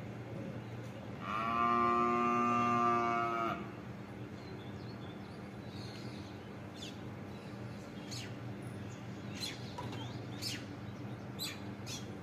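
A loud, drawn-out animal call lasting about two seconds, held at a steady pitch, followed by a few short, high bird chirps.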